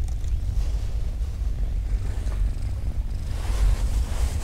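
Steady low wind rumble on the microphone, with a cat's paws scratching and digging in beach sand.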